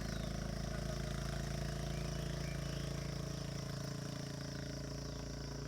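Small single-cylinder motorbike engine idling steadily, with no revving.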